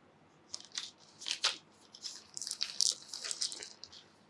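Small plastic bag of board-game pieces crinkling as it is handled and opened, in short scattered crackles that are busiest in the middle.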